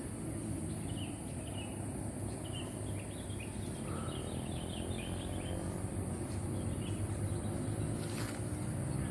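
Rural outdoor ambience: a steady low rumble and a steady high-pitched drone, with a cluster of short bird-like chirps in the middle.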